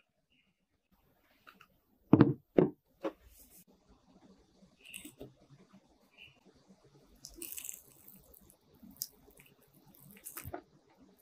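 Soft handling sounds of cut mochi ice cream pieces on a cutting board: two dull knocks about two seconds in, then scattered light taps and rustles. Near the end the soft mochi skin of one piece is pulled apart.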